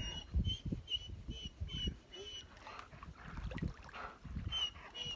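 Short, high peeping calls repeated about twice a second, pausing in the middle and starting again near the end, over irregular low thumps and rustling.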